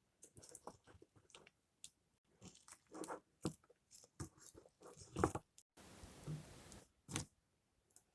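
Slime packaging being handled and opened: irregular crinkling, crackling and sharp clicks. There is a steady rustle for about a second, roughly six seconds in.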